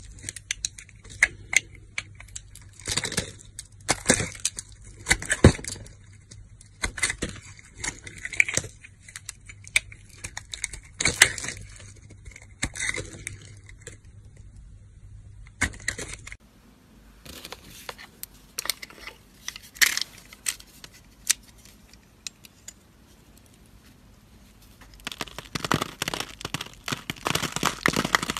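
Bars of soap being cut and carved with a metal blade, making irregular crisp cracks and crackles as slices and chips break away. Near the end, a scored bar crumbles into small cubes under the blade in a dense run of crackling.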